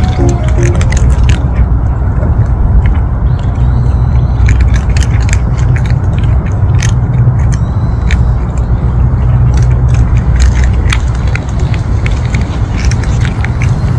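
Stray cats crunching dry kibble and treats off the ground, a steady run of quick crunches and clicks. A steady low rumble sits underneath.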